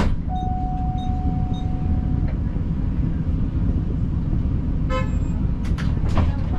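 Steady low rumble of street traffic and tram noise. A single held tone lasts about two seconds near the start, and a short horn toot comes about five seconds in.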